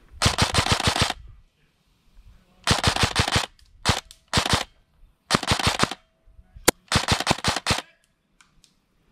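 Airsoft rifle firing in short full-auto bursts: five rapid strings of shots, each under a second long, with one single shot between the last two bursts.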